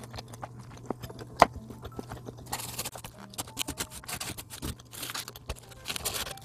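Chewing with a few sharp mouth clicks, one louder about a second and a half in. Then a fried snack is rubbed through seasoning powder in a paper takeout box, and the paper rustles and scrapes in two short bursts, the second near the end.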